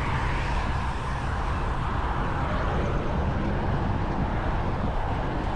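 Steady road noise heard from a moving bicycle: wind rumbling on the microphone with traffic going by on the road.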